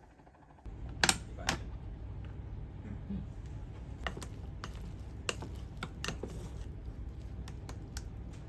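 Scattered light clicks and taps, two sharper ones about a second in, over a low steady hum.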